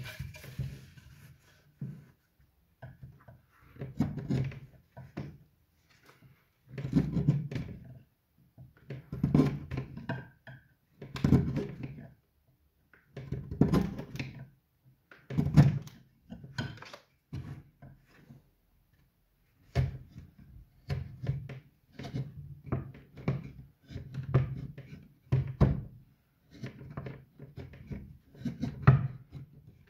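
A hand carving chisel paring shavings from the rim of a wooden bowl: a series of short scraping cuts, one every second or two, with a couple of brief pauses.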